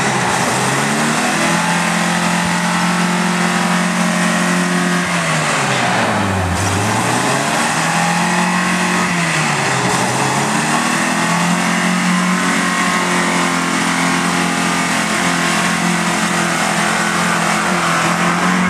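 4x4 pickup truck's engine held at high revs, the throttle eased off and floored again twice, about six and ten seconds in. The truck is stuck in a deep mud rut, going nowhere while it revs.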